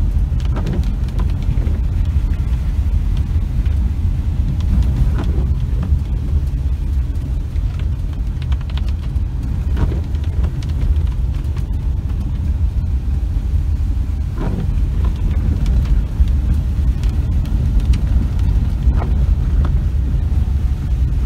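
4WD vehicle driving on a rough, wet dirt road, heard from inside: a steady low rumble of engine and tyres with a few short knocks from the road surface.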